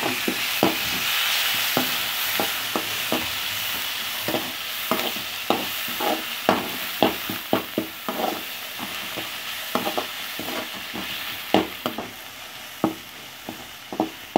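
Chopped onions, tomatoes, garlic and curry leaves sizzling in hot oil in a metal kadai, while a metal slotted ladle scrapes and knocks against the pan as they are stirred. The sizzle is strongest at first and gradually fades.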